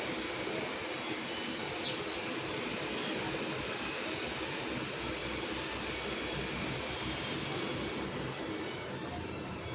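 LG washing machine running, its motor giving a steady high whine over a low hum. About seven seconds in, the whine lifts briefly, then drops in pitch as the machine slows.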